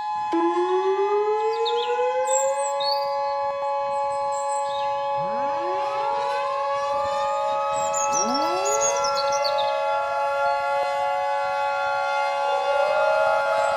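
Several outdoor warning sirens sound together in a layered mix, made from recordings of Federal Signal 2001s, Modulators and an American Signal Omnialert. Sirens already holding a steady wail are joined by others that wind up in rising pitch and then level off: one just after the start, more around the middle, and another near the end. Birds chirp faintly over them.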